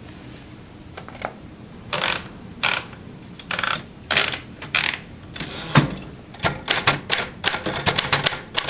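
Manual typewriter: a few short, separate clatters from the carriage mechanism, then, from about six seconds in, a quick run of keys clacking as someone types.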